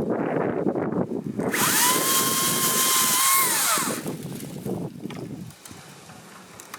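Makita brushless battery chainsaw cutting wood with a dense rough buzz. About a second and a half in, the motor whines up to full speed, holds a steady high pitch for about two seconds, then winds down. Rougher cutting follows and fades to a quieter hum.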